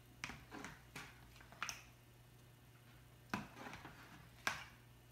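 Plastic spoon tapping and scraping against a plastic bowl of water while scooping out peanuts: a handful of light, sharp clicks, the loudest about three and a half and four and a half seconds in.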